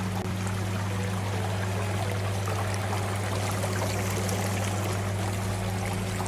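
Whirlpool bathtub with its jets running: water churning and bubbling over a steady low hum.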